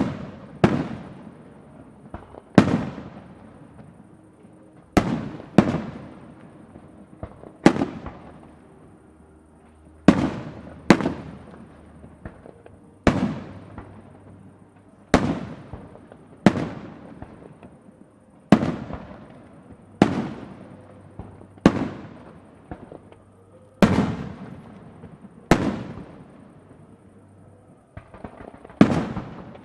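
Aerial firework shells bursting, about twenty sharp bangs spaced a second or two apart, each trailing off in a long echoing rumble.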